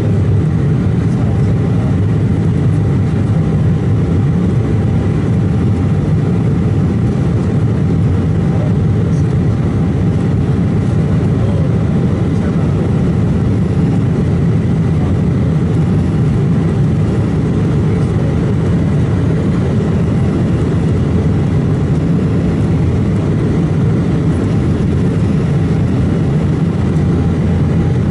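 Cabin noise of an Embraer 190 airliner in the climb: a loud, steady, deep drone of its CF34 turbofan engines and rushing airflow, with faint steady whines.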